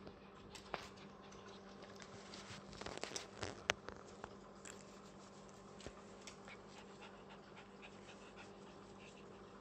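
Faint steady hum of aquarium filter equipment, with scattered small clicks and pops, most of them in a brief cluster about three to four seconds in.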